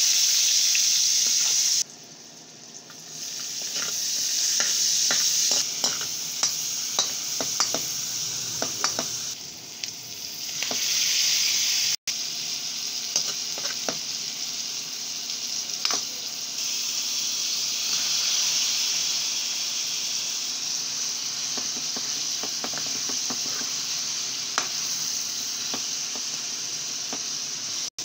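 Garlic, then chicken and onion, sizzling in hot oil in a metal wok, with a metal spatula scraping and clicking against the pan as it stirs. The sizzle breaks off sharply about two seconds in and briefly near halfway, then resumes.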